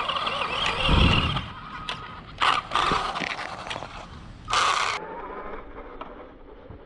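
Small brushed electric RC car's motor and drivetrain running with a rough grinding noise, surging louder in a few short bursts. The noise comes from the differential grinding itself, leaving metal shavings and play in the gears.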